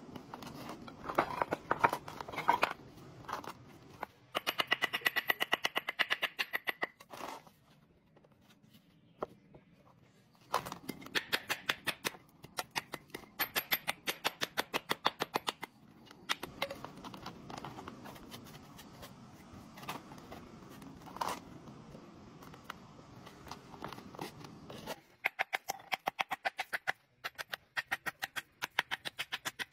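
Hammer tapping natural stones into fresh mortar: fast, even runs of sharp taps, broken by short pauses.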